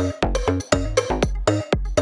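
Background music: an electronic dance track with a steady beat of heavy bass hits, about four a second.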